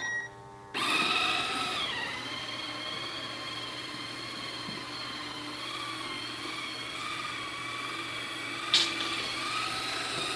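bObsweep robot vacuum starting up: a brief electronic tone, then its motors and brush spin up about a second in and settle into a steady whine, running normally despite its earlier jammed-brush error. One sharp click near the end.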